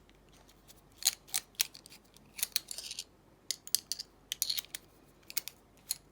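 Irregular sharp metallic clicks and light scrapes as a brass-and-steel padlock is taken apart with small tools, a dozen or so clicks in quick clusters.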